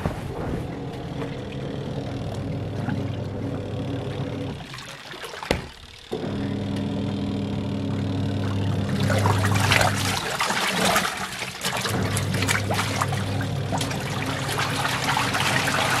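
Ramtons 10 kg twin tub washing machine's wash motor humming as its pulsator churns the rinse water and clothes. The hum stops for a moment about five seconds in and again near ten seconds, then starts up again, and the water sloshing grows louder in the second half.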